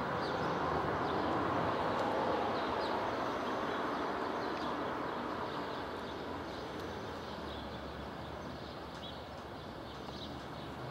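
Steady background rush of outdoor ambience that eases a little after the first few seconds, with short faint bird chirps now and then.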